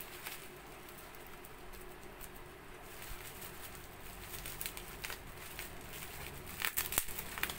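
Faint rustling and crackling of a plastic and bubble-wrap package being handled and opened, with a denser run of sharp crinkles and clicks near the end.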